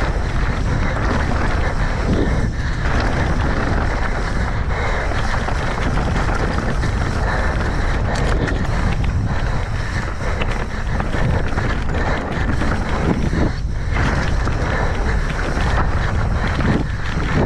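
Wind rushing over the microphone of a mountain bike's onboard action camera on a fast descent, mixed with the tyres rolling over dirt and rock and the bike rattling. The loud, steady rush never lets up, with short crackles scattered through it.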